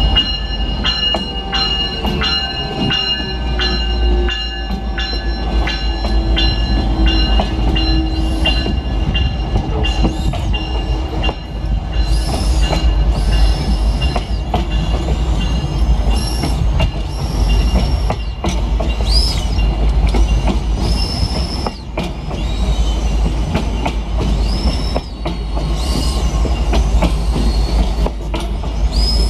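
Amtrak Cascades passenger train rolling slowly into a station over a steady low rumble. First comes the diesel locomotive, with a tone falling slowly in pitch and regular metallic strikes about twice a second. Then the Talgo cars pass with their wheels squealing in repeated high-pitched bursts.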